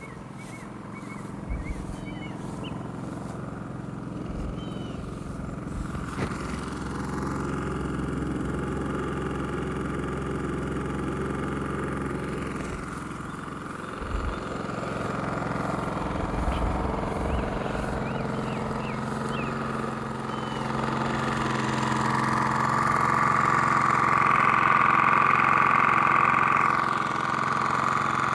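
WEN DF400i inverter generator's 212cc four-stroke air-cooled engine running steadily. It grows louder in steps, about seven and twenty seconds in, and is loudest near the end.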